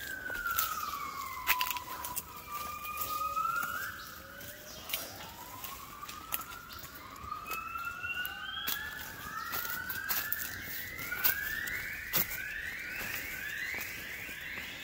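Southern yellow-cheeked gibbon singing: a long falling note, then a run of rising notes that come faster and climb higher toward the end. Sharp clicks and snaps of footsteps on forest litter throughout.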